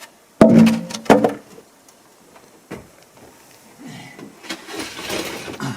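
Two loud knocks about two thirds of a second apart, then quieter shuffling and, near the end, a second or so of scraping and rustling: diving equipment being picked up and moved about.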